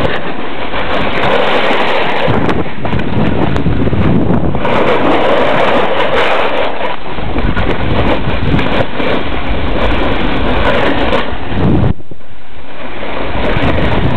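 Loud rush of wind buffeting the microphone, mixed with the hiss of sliding over snow, while moving fast down a ski slope. Near the end it briefly eases, then picks up again.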